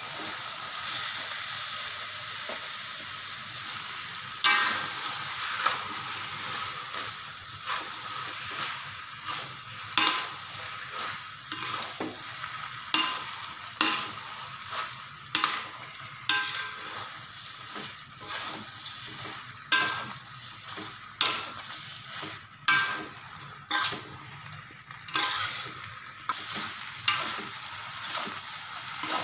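Flat rice noodles and prawns sizzling in a hot wok as they are stir-fried. From about four seconds in, a metal spatula scrapes and knocks against the wok roughly once a second.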